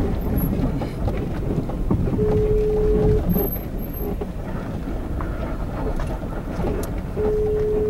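Telephone ringback tone heard through a phone: a steady beep about a second long, sounding twice about five seconds apart while the call waits to be answered. Under it runs the steady low rumble of a vehicle.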